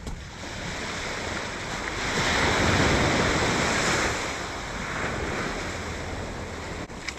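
Surf breaking on the beach: a steady wash that swells to a louder rush about two seconds in and eases off again a couple of seconds later.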